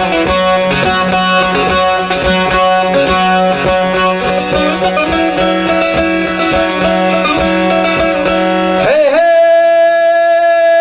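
Türkü music on a plucked bağlama: quick picked melody notes over a steady drone string. About nine seconds in the playing gives way to a voice sliding up into a long held sung note.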